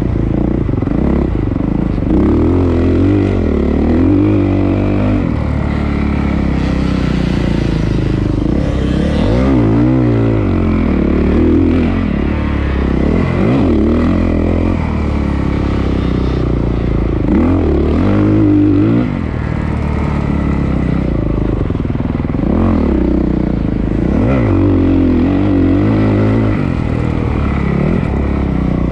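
Honda CRF450R motocross bike's single-cylinder four-stroke engine revving hard and dropping back again and again, as the rider accelerates, shifts and rolls off around the track.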